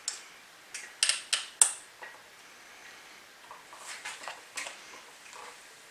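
Hand tool clicking and clinking on the metal housing and bolts of a Hangkai 3.6 hp outboard motor as it is unbolted: a few sharp metallic clicks about a second in, then softer ticks and handling noise.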